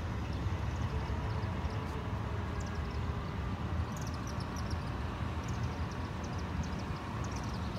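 Steady low outdoor rumble, with a bird singing runs of quick, falling chirps from a few seconds in.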